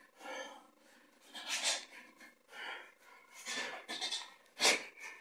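A boxer's sharp, hissing exhalations in time with his punches, about one a second and five in all, the last one the loudest.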